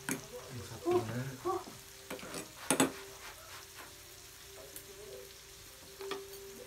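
Slices of meat sizzling on a grill pan over a portable gas stove, a steady hiss, with a few sharp clicks of chopsticks on the pan, the loudest about three seconds in. A brief voice sounds about a second in.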